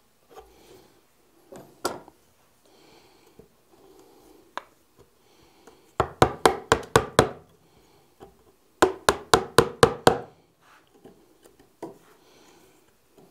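A chisel being struck into a wooden board to cut a hinge recess, in two quick runs of about seven sharp knocks each, roughly three seconds apart. Faint handling and scraping sounds come between the runs.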